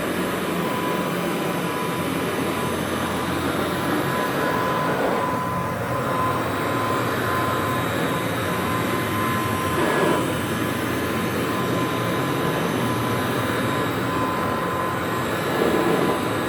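1957 Kirby Model 517 upright vacuum cleaner running steadily, its motor giving a constant whine over a rushing airflow, slightly louder every few seconds.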